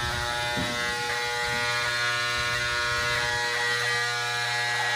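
Small gasoline engine running steadily at constant speed, an even droning hum.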